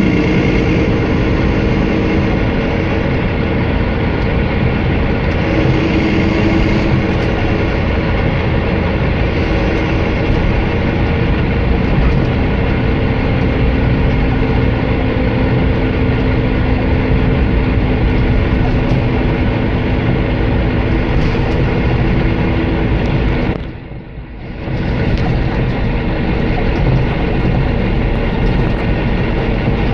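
Cabin noise inside a Volvo B9R coach with Caetano Levante body: its rear-mounted six-cylinder diesel running with a steady rumble of road noise as the coach travels. The sound dips sharply for about a second near the end, then returns to the same level.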